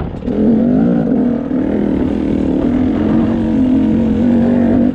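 Enduro dirt bike engine running under the rider at low, fairly steady revs while picking its way along a rocky trail, its pitch rising and dipping slightly with the throttle and dipping briefly just after the start.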